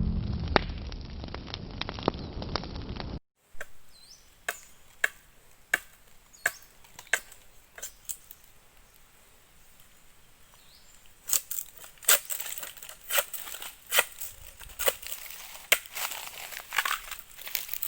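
Intro music fading out, then a series of sharp chopping strikes of a blade on wood or rattan, about one every two-thirds of a second. After a pause of a few seconds come more strikes, less evenly spaced.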